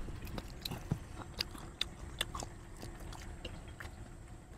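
Close-miked eating sounds: a bite into a sausage, then chewing with scattered wet smacks and clicks.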